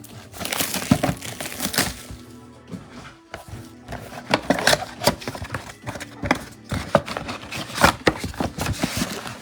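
Cardboard trading-card mega box and its wrapping being torn open and handled: irregular rustling, tearing and tapping, over background music.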